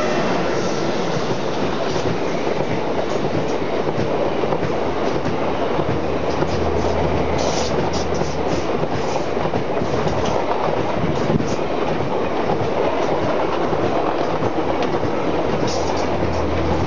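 Long passenger train of Talgo-type coaches passing close by at speed: a steady rush of wheels and air, with the clickety-clack of wheels over the rail joints.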